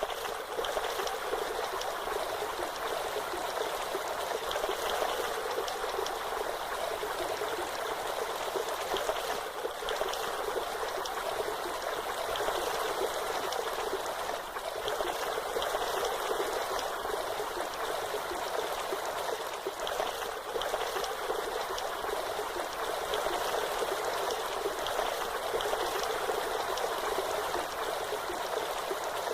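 Waterfall: a steady rush of falling water that stays even throughout, more hiss than deep rumble.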